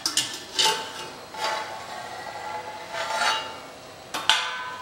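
Metal-on-metal clinks and scrapes as pot tongs grip a steel plate lid and lift it off an aluminium handi, about five clinks in all, each ringing briefly.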